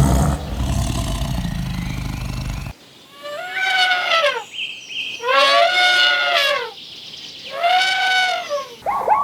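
A low, rough animal roar that cuts off about three seconds in, then three drawn-out animal calls, each about a second long, rising and then falling in pitch.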